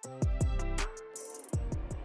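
Background music with an electronic beat: hi-hat ticks and deep bass notes that slide down in pitch, twice.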